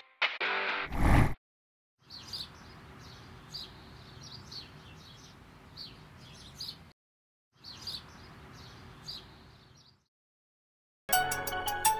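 A distorted guitar music track ends with a loud low boom about a second in. After a short silence, small birds chirp over a faint, steady background hiss in two stretches, split by a brief gap. Music starts again near the end.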